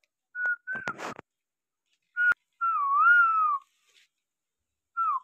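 A person whistling: a couple of short notes, then a longer wavering note that dips and rises, and a short falling note near the end. A brief burst of noise about a second in and a sharp click a little after two seconds come between the notes.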